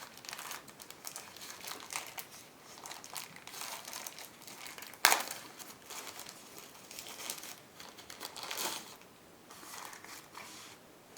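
Plastic packaging crinkling and crackling irregularly as an earphone cable is handled and unwrapped, with one sharp click about five seconds in.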